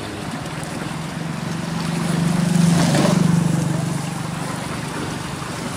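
A small engine passing: a steady low drone that swells to its loudest about halfway through and then fades.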